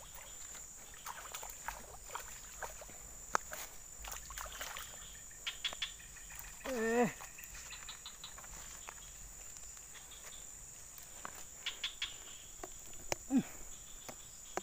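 Steady high-pitched insect drone from the ditch-side vegetation, with scattered small clicks. A short wavering hum-like sound comes about seven seconds in, and a brief falling one near the end.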